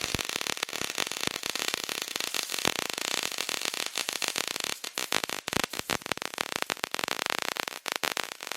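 MIG welder arc crackling and spitting in one continuous run as a bead is laid across the steel, then stopping abruptly near the end.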